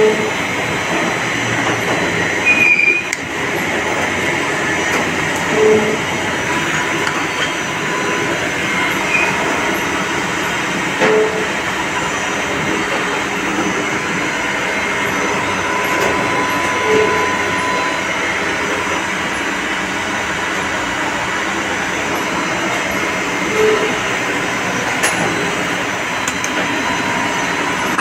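Steady mechanical running noise of CNC machine-shop machinery, with a faint high whine and a few soft knocks spaced several seconds apart.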